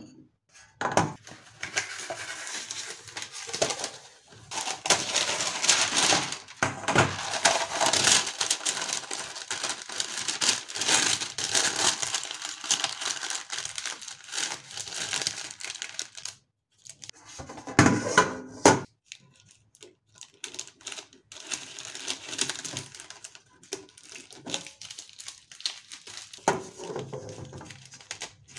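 A sheet of brown baking paper being crinkled, creased and folded by hand: dense crackling for about the first half, a short break, a loud burst of crackling, then softer rustling.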